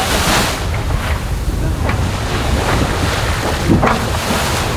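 Wind and rushing sea water on an offshore racing yacht under sail, with wind buffeting the microphone. Brief louder surges come near the start and again near the end.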